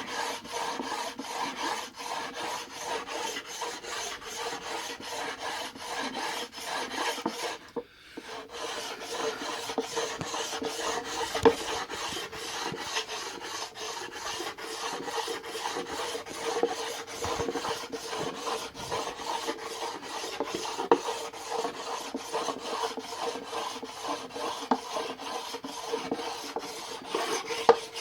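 Coarse sharpening stone rubbed rapidly back and forth over a wooden cutting board like a sanding block, a continuous rasping scrape that smooths the board's surface. The strokes stop briefly about eight seconds in, then resume.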